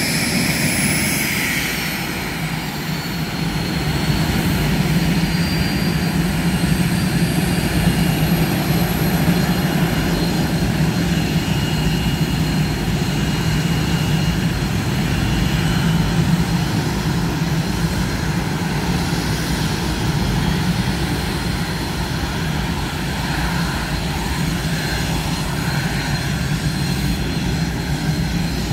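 Northrop F-5 jets' twin J85 turbojet engines running as a jet taxis, a steady low jet noise with a thin high whine over it. The level dips briefly about two to three seconds in.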